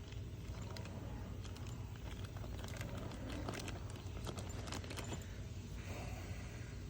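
Light, irregular clicks and rattles of small plastic parts being handled and sorted, over a steady low rumble.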